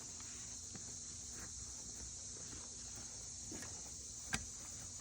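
Digging in soil: a few scattered scrapes and sharp knocks of a digging tool, the loudest about four seconds in, over a steady high buzz of insects.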